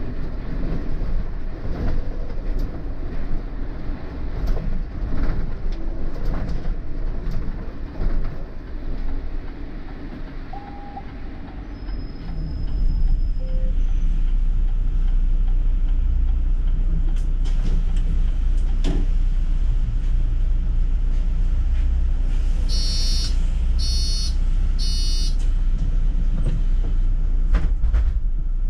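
City bus running, heard from on board: uneven ride rumble with scattered knocks and rattles, turning into a louder, steady low drone about twelve seconds in. Three short electronic beeps sound about two-thirds of the way through.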